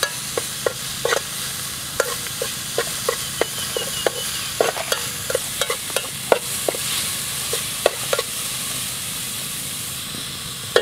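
A metal spoon stirring yellow herb paste in a metal pot, clinking irregularly against the pot, one or two clinks a second, while the paste sizzles steadily in the oil. The clinks stop about eight seconds in and the sizzle carries on.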